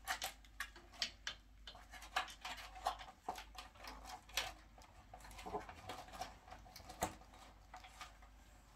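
Hands working at small cable connectors and boards inside a flat-panel TV: faint, irregular light clicks and scratches.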